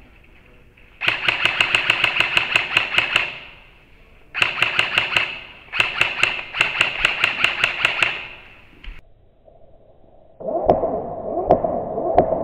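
Airsoft electric guns (AEGs) firing on full auto: three bursts of rapid shots, each shot a sharp click over the high whine of the gun's motor and gearbox, the middle burst short. Near the end a second gun with a lower-pitched whine starts firing.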